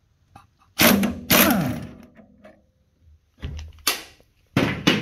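Impact wrench hammering in several short bursts as it spins off the generator pulley nut of a 1967 VW Beetle engine. One burst winds down with a falling pitch.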